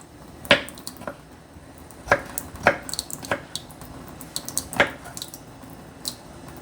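Kitchen utensils and dishes being handled: irregular sharp knocks and clinks, about five louder ones among lighter taps.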